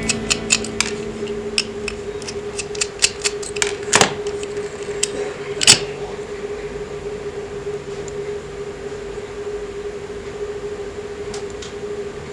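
Sharp metallic clicks and taps of a small hand tool and fingers on a die-cast toy car's metal base, about a dozen in the first six seconds, the loudest two about four and six seconds in, with a few faint ones near the end. A steady hum runs underneath.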